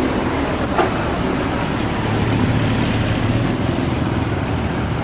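Large diesel bus engine running steadily at low speed with a low hum, with one short sharp click less than a second in.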